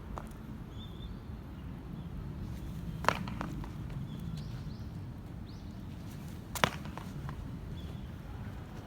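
Two sharp foot strikes on a running track, about three and a half seconds apart, from a hurdler's lead-leg takeoff drill, over a steady low outdoor rumble.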